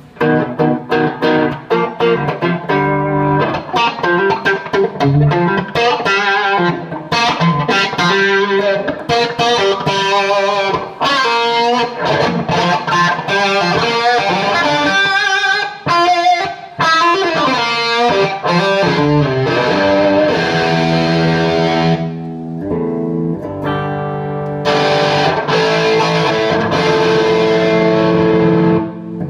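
Stratocaster-style electric guitar played through a 3rd Power amp with overdrive: quick picked single-note lead runs, changing to longer ringing chords about two-thirds of the way in.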